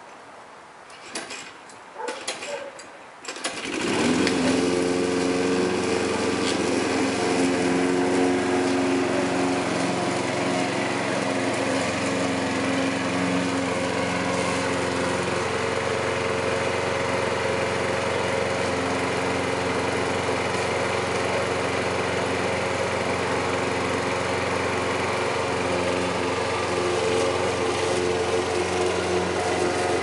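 Gasoline lawn mower engine starting about four seconds in, after a few short clattering noises, then running steadily at an even speed.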